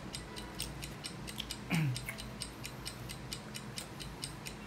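Rapid, crisp crackling, a few clicks a second, of hard deep-fried pork lumpiang shanghai (spring rolls) being crunched while chewing.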